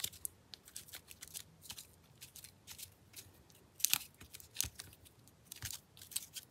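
Paper rustling and crinkling as hands fold and press a torn paper layer flat onto a card, with light scattered crackles and a louder crinkle about four seconds in.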